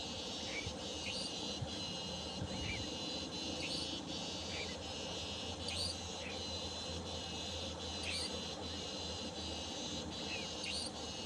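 Nightjar chick giving short, high chirps about once a second, some in quick pairs, calling out hungry for its parent, over a steady chorus of crickets.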